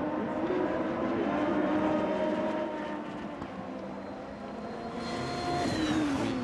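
Super Formula single-seaters' turbocharged 2.0-litre four-cylinder engines running at racing speed, several engine notes overlapping as two cars pass. Their pitch rises and falls with the gear changes, and near the end the notes glide down as a car lifts and shifts down.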